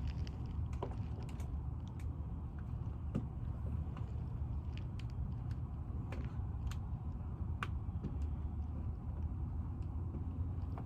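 Scattered small clicks and taps of hand work with a small screwdriver on doorbell wiring, over a steady low rumble.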